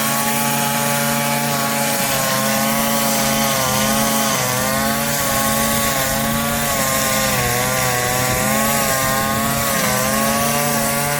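Chainsaw engine running while cutting wood, its pitch wavering up and down as the load changes, and dipping briefly near the end.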